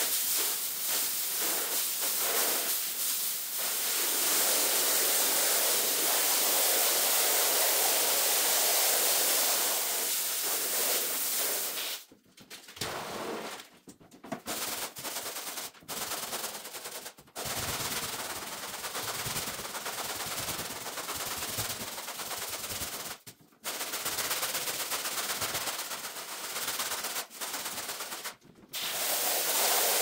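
Sped-up rug-cleaning work on a heavily soiled carpet: a dense, hissing scrubbing noise that cuts off abruptly several times, about twelve seconds in and again near the end.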